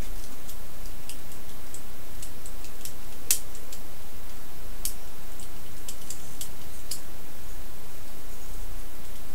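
Small plastic clicks and snaps of a Transformers Sea Attack Ravage figure's joints as its legs are folded and flipped during transformation, irregular, with one sharper click about three seconds in.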